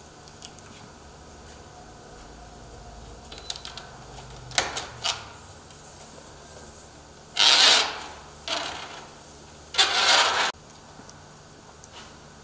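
Screw covers being fitted onto a security door's screws by hand: light clicks, then a few short scraping bursts, the two loudest lasting about a second each, around halfway through and again near the end.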